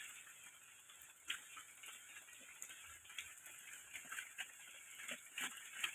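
Light rain falling: a faint steady hiss with irregular drips tapping.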